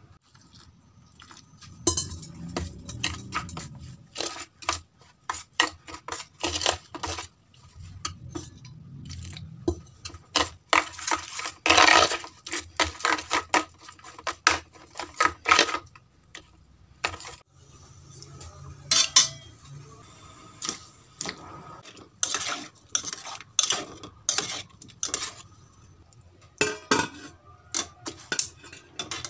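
A metal spoon clinking and scraping against a stainless steel bowl while stirring thick pakoda batter, in an irregular run of sharp clinks.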